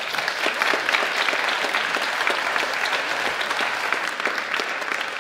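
Audience applauding: many hands clapping at once, a dense, steady patter that holds at an even level.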